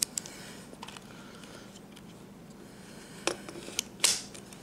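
Small plastic clicks and rubbing as a camcorder's viewfinder eyecup is slid back onto the eyepiece and latched. There are a few scattered clicks, the loudest near the end.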